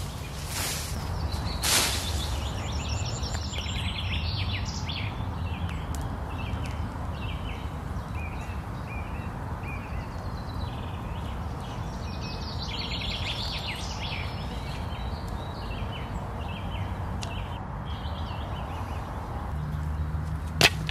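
Songbirds singing in phrases of quick repeated chirps, twice at length, over a steady low rumble. Two sharp cracks in the first couple of seconds, likely leafy branches being broken off, and one sharp knock near the end.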